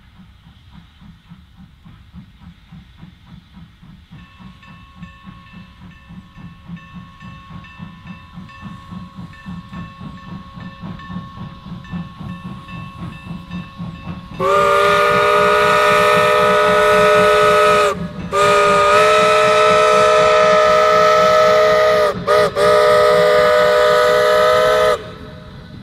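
Steam locomotive working a passenger train, its exhaust chuffing in a steady beat that grows louder as it approaches. About halfway through, its chord whistle blows loud in a long, long, short, long pattern, the grade-crossing signal.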